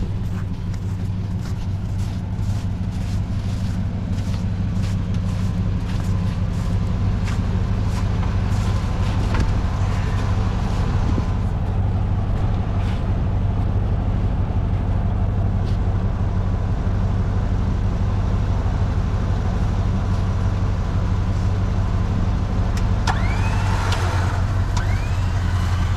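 A vehicle engine running steadily with a low, even drone, with scattered clicks and knocks through the first half.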